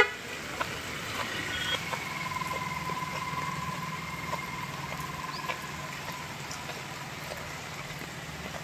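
Heavy rain falling steadily on a flooded paved yard, with a vehicle engine running underneath. A sharp click comes at the very start, and a faint thin tone sounds from about two to seven seconds in.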